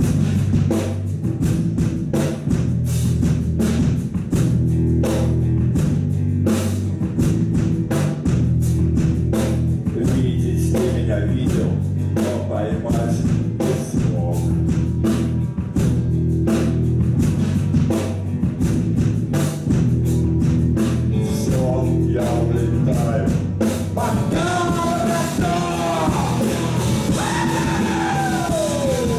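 A live rock band plays an instrumental passage: a steady drum beat over a sustained bass, with electric guitar and keyboards. Near the end, descending gliding tones slide down over the beat.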